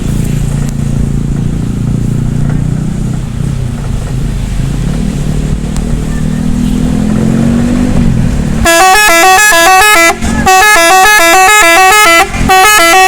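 Bus engine running, its pitch rising a little before the horn starts. Then the bus's telolet horn, a multi-trumpet air horn, plays a fast tune of stepped notes in three bursts with short breaks between them, much louder than the engine.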